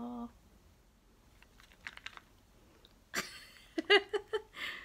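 A held sung note ends just after the start. It is followed by a quiet stretch with a few faint clicks, then brief bursts of voice and a short laugh-like vocal sound near the end.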